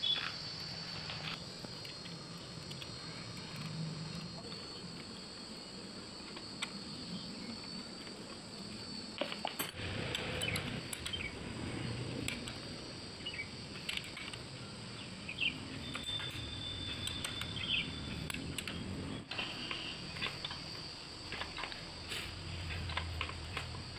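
Short metallic clinks and taps of hand tools working on a Honda Activa scooter's cylinder head and rocker arms during valve-train assembly, scattered irregularly, over a steady high-pitched background drone.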